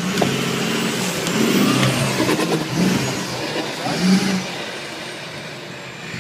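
Off-road 4x4 pickup's engine revving in rising and falling surges as it climbs a steep dirt bank, with a few sharp knocks in the first two seconds or so.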